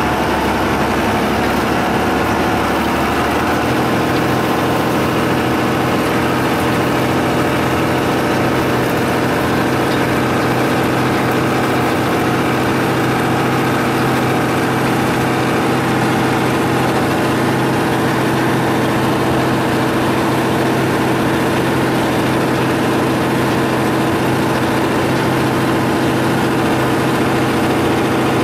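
Unimog engine running steadily under way, heard from inside the cab. Its note shifts about three and a half seconds in, then holds even.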